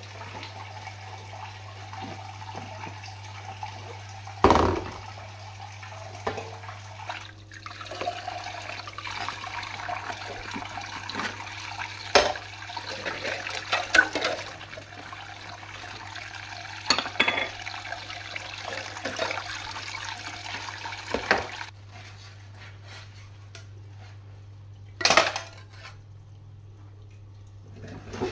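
Kitchen tap water running into a sink while soapy ceramic bowls are rinsed, with crockery clinking and clattering every few seconds. The running water stops about three quarters of the way through, and a few more clatters of dishes follow.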